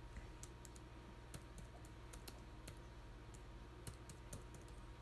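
Faint, irregular keystrokes on a computer keyboard as a short word is typed.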